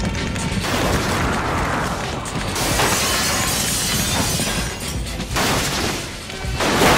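Action-film sound effects of explosions with shattering and crashing debris, mixed over background music, with a sharp crash near the end.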